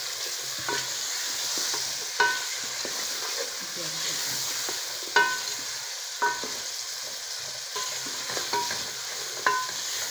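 Diced kaddu (gourd) with onion and spices sautéing in oil in an aluminium pot, a steady frying sizzle, while a wooden spoon stirs and scrapes it. Several sharp, briefly ringing knocks come at uneven intervals as the spoon hits the metal pot.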